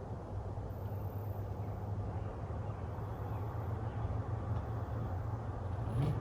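An engine running steadily at low speed, a constant low drone. A short thump comes near the end.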